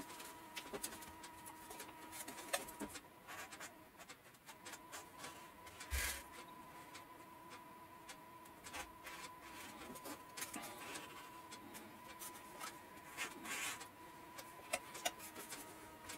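Faint scraping and light clicks of a small tool and a card working excess epoxy out of a slot in a model-aircraft wing, with one louder knock about six seconds in, over a faint steady high hum.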